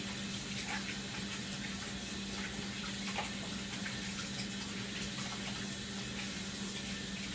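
Kitchen tap running steadily as hands are washed under it.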